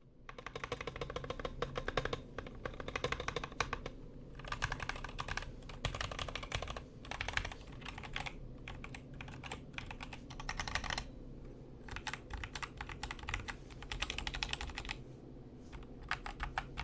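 Typing on a Zet Gaming Blade Pro keyboard with optical red switches: fast runs of keystroke clacks with a few short pauses. The reviewer finds the keystrokes fairly loud, with an unpleasant sound reflected off the case.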